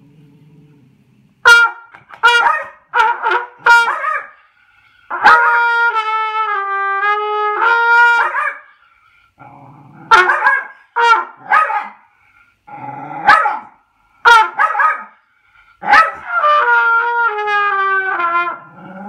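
A dog barks in sharp bursts at a trumpet being played. The trumpet holds longer notes about five seconds in and again near the end, the last one sliding down in pitch, with clusters of barks in between.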